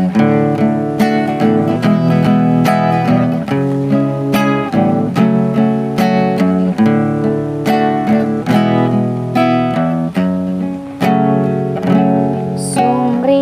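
Acoustic guitar playing the instrumental intro to a song, plucked and strummed notes coming in a steady rhythm of two or three a second, before the vocal enters.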